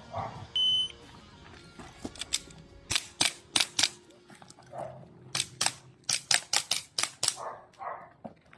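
A shot timer beeps once, then an airsoft gun fires 6mm BBs in quick strings of sharp shots, several a second.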